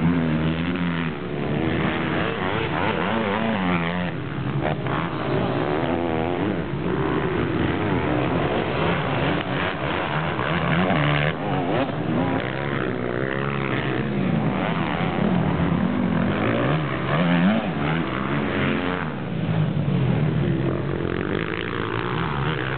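Several motocross motorcycles revving and riding around a dirt track, their engines rising and falling in pitch as they accelerate and shut off, overlapping one another.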